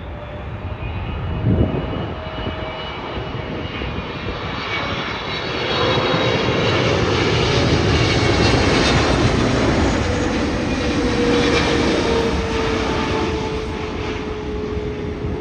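Jet airliner passing low overhead on final approach to land: its engine noise builds over the first few seconds, holds loud through the middle, and a whining tone slowly falls in pitch as it goes past. A short thump comes about a second and a half in.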